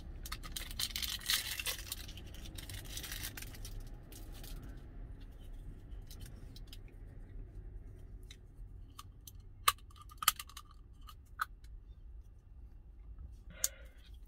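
Plastic wrapper of a disposable spoon crinkling and tearing open for about three seconds, then a few sharp small plastic clicks as the spoon is handled, over a steady low rumble.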